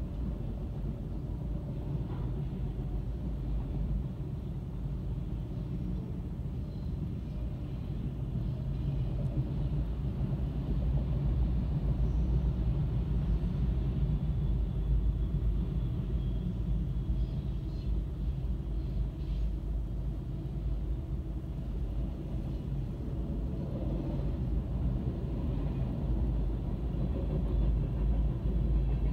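Freight train rolling past, a steady low rumble heard muffled from inside a car. It grows a little louder about ten seconds in.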